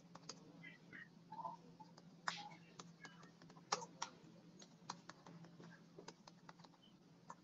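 Near silence with faint, irregular clicks of typing on a computer keyboard, over a low steady hum.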